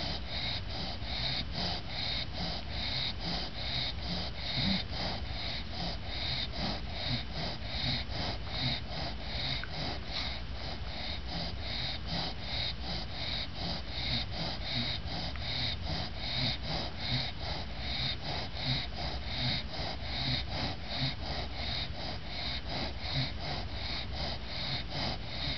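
English bulldog snoring and snorting through her short nose, each breath rasping in a steady, quick rhythm. The dog is worn out and resting after a bath.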